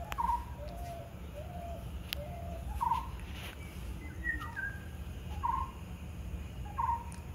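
Birds calling: a short call repeats four times at roughly two-second intervals. Lower notes come between the first ones and a higher call falls in the middle, over a steady low background rumble.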